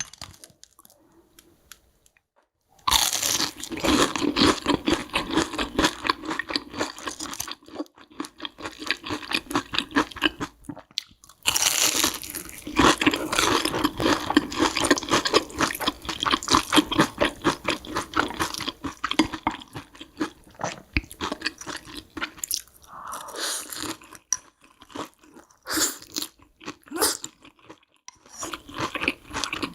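Close-miked eating: rapid, dense crunching and chewing of food that starts about three seconds in, pauses briefly, resumes, and thins out to separate bites near the end.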